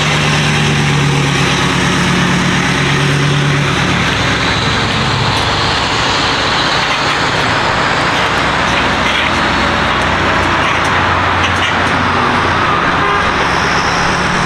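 A truck towing a loaded triple-axle gooseneck car trailer drives past and away. Its engine drones steadily for the first few seconds, then the sound goes on as steady road and traffic noise.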